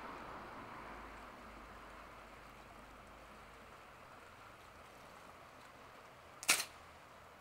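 A single sharp firework crack about six and a half seconds in, over a faint steady hiss.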